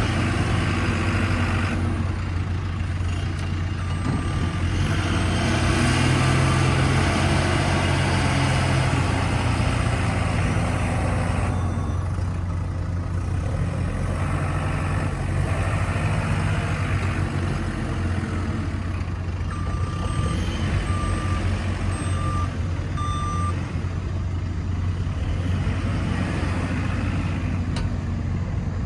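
JCB 3CX backhoe loader's diesel engine running, its sound swelling and easing as the machine works. A reversing alarm beeps about five times in a row roughly two-thirds of the way through.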